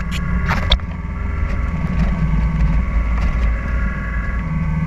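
A sailing yacht under way in a gale: a loud, steady low rumble, with faint steady tones above it and a few sharp clicks about half a second in.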